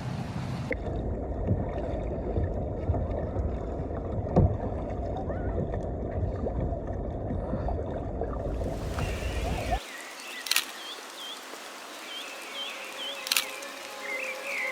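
Muffled, low rushing and sloshing of water for about nine seconds, then an abrupt cut to a quieter scene with small bird chirps and a couple of sharp clicks.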